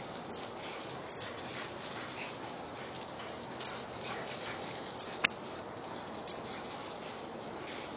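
Dogs running and playing on dusty ground: light patter and scuffing of paws, with a sharp click about five seconds in.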